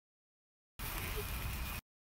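Silence, then about a second of steady background noise with a low rumble that starts and cuts off abruptly.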